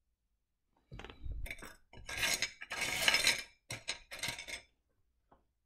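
Pieces of rough opal being raked and stirred by fingers in a dish, clinking and rattling against each other and the dish for about three and a half seconds, starting about a second in. One faint click follows near the end.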